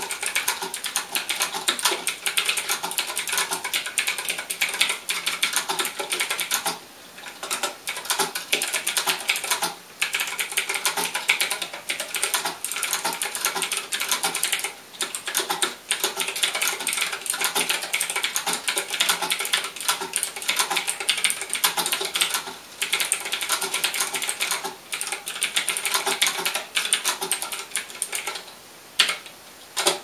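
Typing on a 60% mechanical keyboard with clicky Gateron Green switches and round typewriter-style keycaps: a fast, dense run of sharp clicks, broken by brief pauses every few seconds.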